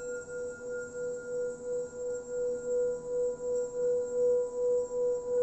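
Singing bowl sung by circling a mallet around its rim: one steady low ringing tone that pulses about twice a second and slowly grows louder.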